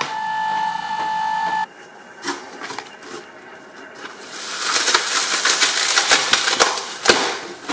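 A steady high whine cuts off about a second and a half in. After a few faint clicks, dense crackling and sharp popping builds up from about halfway and runs nearly to the end: a watermelon splitting and bursting under a hydraulic press's bed of nails.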